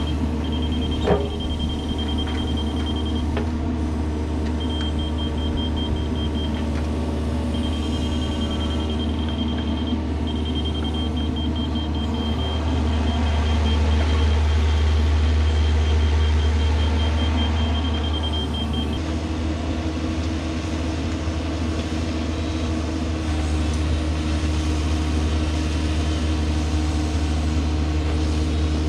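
Diesel engine of a compact excavation machine running steadily under work, swelling a little in the middle. A rapid high-pitched beeping sounds in stretches through the first two-thirds and stops about two-thirds of the way through. A single sharp knock comes about a second in.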